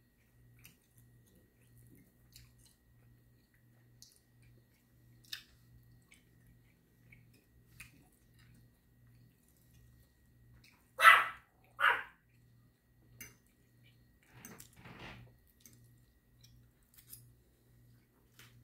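A dog barks twice, loudly, about eleven seconds in, then gives two softer barks a few seconds later. Faint clicks of cutlery on a plate come and go between them.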